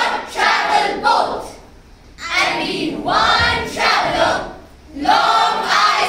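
A group of schoolchildren reciting a poem together in unison (choral speaking), in phrases with short pauses between them.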